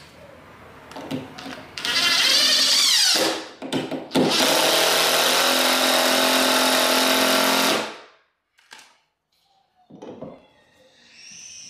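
DeWalt cordless drill driving a toe screw at an angle through a wooden floor joist into the band board. The motor runs in a burst of about a second and a half, pulses briefly, then runs steadily for about three and a half seconds and stops sharply as the screw seats.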